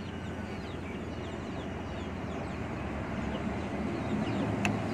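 Steady outdoor background noise with a low hum and faint bird chirps, and one sharp click near the end.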